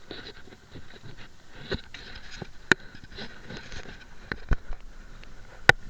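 A handful of sharp clicks and knocks, scattered irregularly over a faint hiss, two of them louder than the rest.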